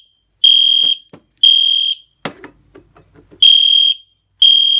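Fire alarm sounder beeping in the temporal-three evacuation pattern: loud, high-pitched half-second beeps, three at a time with a longer pause between sets. It was set off by a smoke detector being tested. A single knock falls in the pause.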